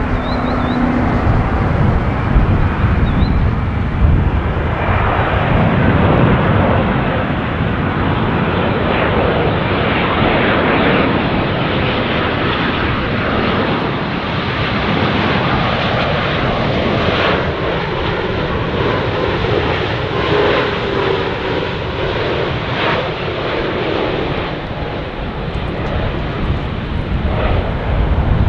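Boeing 787-9 Dreamliner's Rolls-Royce Trent 1000 jet engines during landing: a steady, loud jet roar, with a fainter whine sliding down in pitch over the second half.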